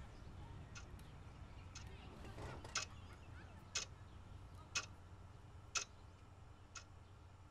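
Quartz wall clock ticking, one tick a second, faint, with four louder ticks in the middle.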